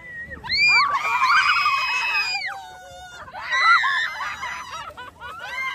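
Several raft riders screaming and shrieking in high-pitched, overlapping voices on a river rapids ride. The screams come in bursts of one to two seconds: one about a second in, another near four seconds, and a third starting near the end.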